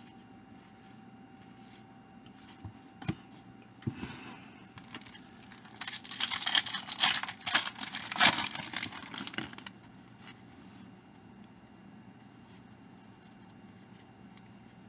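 A foil trading-card pack wrapper being torn open and crinkled: a few light clicks, then several seconds of tearing and rustling, loudest midway, before it goes quiet.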